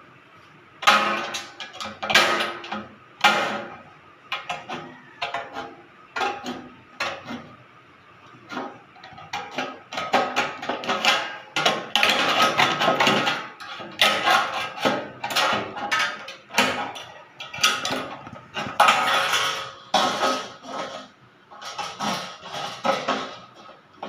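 Aviation tin snips cutting pre-painted sheet-metal flashing: an irregular run of short, sharp snips, starting about a second in and going on with brief pauses between cuts.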